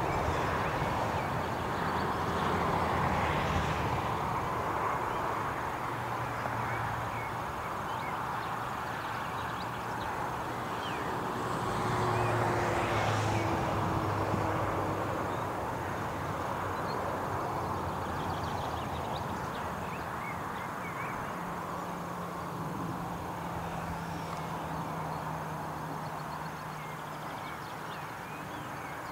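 Open countryside ambience: a steady background rush with a low engine drone that shifts in pitch a couple of times, likely from passing aircraft or traffic, and faint high bird chirps scattered throughout.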